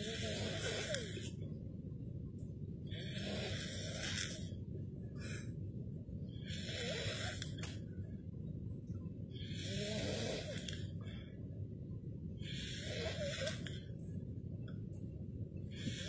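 A man snoring with his mouth open in deep sleep: a noisy snore on each breath, about every three seconds.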